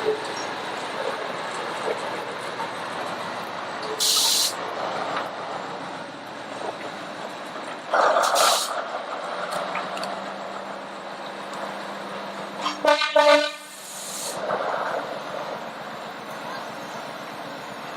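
A train whistle sounding once, for about a second, about thirteen seconds in, over the steady running noise of the ride. Short, sharp hisses come every few seconds.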